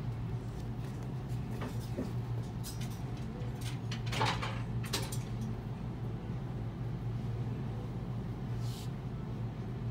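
Steady low hum of room tone, with a few brief rustles and clicks of clothing and sunglasses being handled, the loudest about four seconds in.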